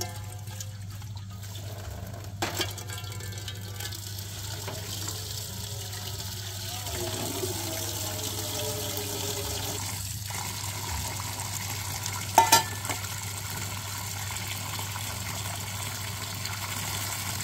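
Tap water pouring into a large steel pot in a metal sink, filling it, the splashing growing fuller about six seconds in. Two short knocks of handled dishware, the louder one about twelve seconds in.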